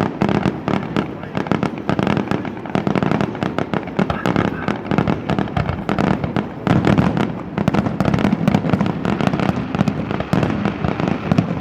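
Fireworks display: a dense, rapid string of bangs and crackling bursts, many a second, one over another with no break.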